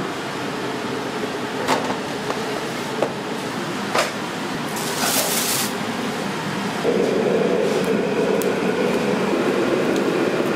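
Chinese restaurant kitchen noise: a steady hum of exhaust fans and burners, with a few sharp clinks and knocks, a brief hiss about five seconds in, and a louder rumble from about seven seconds.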